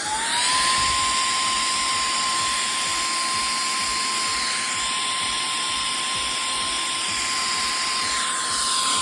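Small handheld vacuum cleaner running: a steady high motor whine over a hiss of rushing air. The pitch rises as the motor speeds up just at the start, then holds level.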